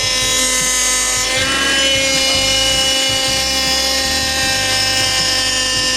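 Honda Accord's new power steering pump whining steadily with the engine running, its pitch shifting slightly about one and a half seconds in as the wheel is turned lock to lock, while the fluid still has air bubbles in it and the system is being bled.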